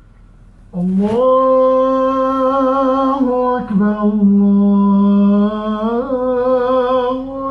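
An imam's chanted prayer recitation: a single man's voice in long, drawn-out held notes, one phrase starting about a second in, a brief break, then a second long phrase that rises near the end.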